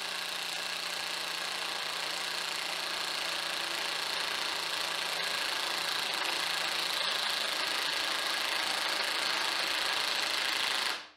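Cordless high-torque impact wrench hammering steadily as it drives a 7-inch lag bolt into wood, cutting off abruptly near the end.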